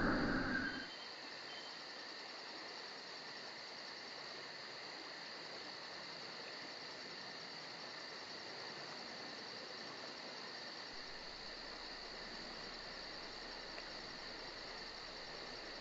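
Faint, steady chirring of insects over a low hiss, after a louder sound fades out within the first second.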